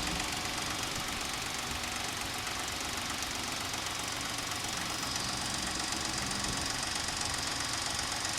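Suzuki Escudo's H25A 2.5-litre V6 engine running steadily with a rapid, regular knock from inside the engine, whose cause the owner and mechanics cannot find; they suggest taking the engine apart.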